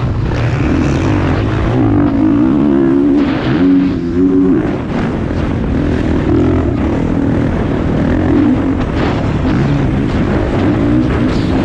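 Motocross bike engine heard up close from an onboard camera, revving hard and dropping off again and again as the rider works the throttle through corners and ruts.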